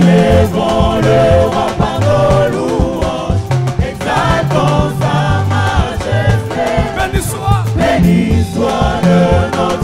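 Live gospel worship song: a choir and lead singers singing over a band with a prominent bass line.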